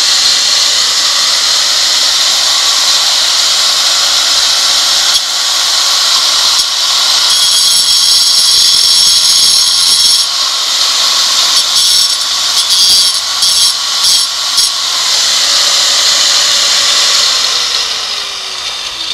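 Angle grinder cutting granite skirting board: a loud steady whine and hiss of the disc in the stone, wavering with dips under load in the middle. Near the end the grinder is let off and the motor winds down, its pitch falling.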